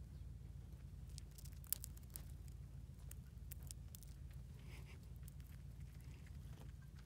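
Small scattered clicks and crackles of a chipmunk husking and nibbling sunflower seeds on a hand, with one sharper click about one and a half seconds in, over a low steady rumble.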